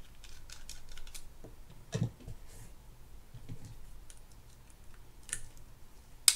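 Light clicking and ticking of a mini screwdriver turning out the small side-cover screws of a Lew's Mach Crush 300 spinning reel, metal on metal. There are a few firmer taps, and one sharp click just before the end.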